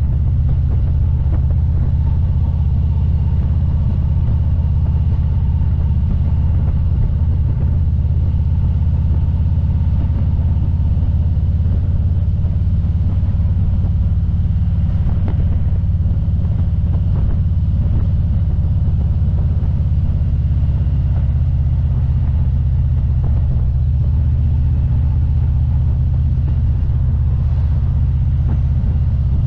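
Touring motorcycle cruising at a steady speed: a loud, even low rumble of engine and wind with no change in pitch.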